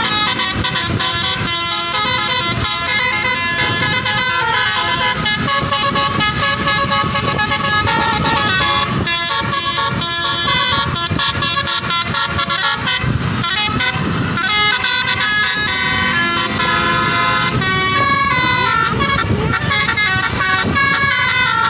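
Indonesian tourist bus's telolet horn, a set of multi-tone air horns, playing a running melody of pitched tones that step up and down without a break.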